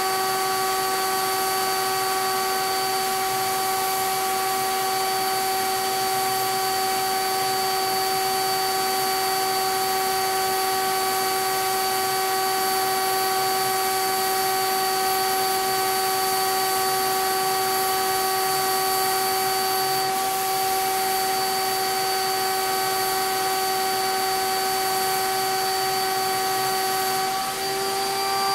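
CapSpray HVLP turbine sprayer running steadily, a high whine over rushing air, as a Titan Maxum II gun sprays BIN shellac-based primer. Near the end the whine dips briefly and then settles slightly higher.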